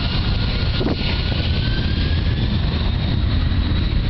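Boeing 767-300ER's twin jet engines at takeoff power during the takeoff roll: a steady, loud rumble with a high whine that climbs slowly in pitch.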